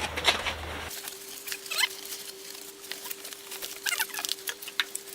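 Light clicks and rustling of packing material as an e-bike is unpacked from its shipping box, with two brief high squeaks that fall in pitch.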